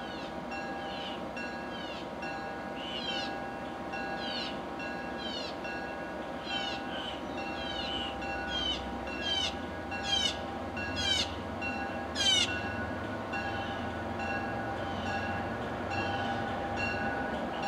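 MBTA commuter train rolling slowly into a station, a low rumble building as it nears. Over it runs a steady pulsing ding, with a string of short high falling squeals, the loudest about twelve seconds in.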